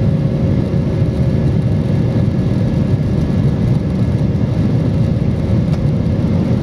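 Steady cabin noise inside an Airbus airliner shortly after takeoff: the low drone of the jet engines and rushing air, heard from a window seat over the wing, with a faint steady hum.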